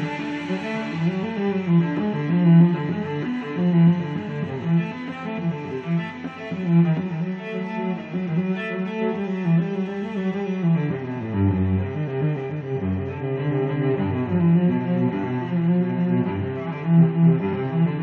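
Instrumental background music with a slow, low melody of sustained notes.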